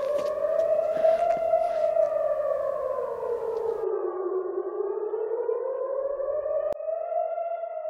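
A siren-like wailing tone that rises and falls slowly in pitch, about one full swell every six seconds. The background hiss drops away about halfway through, leaving the wail alone.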